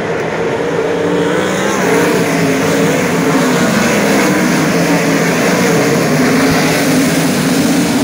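A pack of 410 winged sprint cars running together on a dirt oval, many engines at once, growing louder about two seconds in as the field comes past the grandstand.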